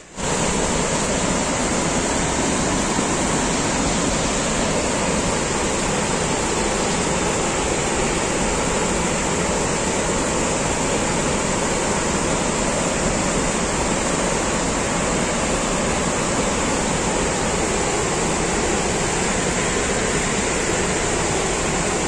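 Kuntala Waterfall: falling water rushing in a steady, unbroken roar that sets in suddenly at the start.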